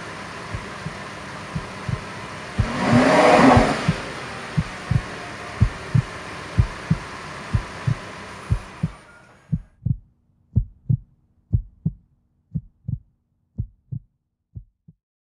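Heartbeat-like soundtrack effect: deep thuds in close pairs, about one pair a second. A rushing swell comes about three seconds in, and a background hiss fades out about nine seconds in, leaving the thuds alone.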